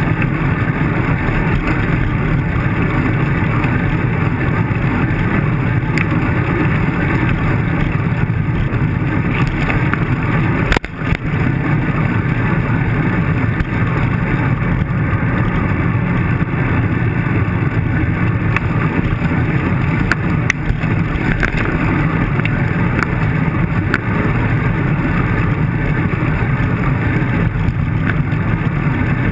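Steady low rumble of wind and road vibration picked up by a bicycle-mounted camera as the bike rolls over rough pavement, with a brief dropout about eleven seconds in.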